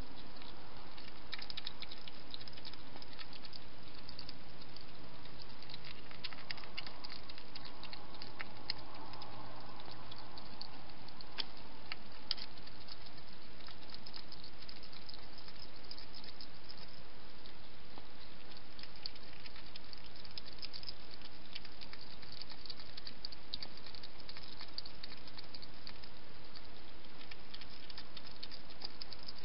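Hedgehog eating from a dish: a run of small, irregular clicks and crunches, over a steady hiss.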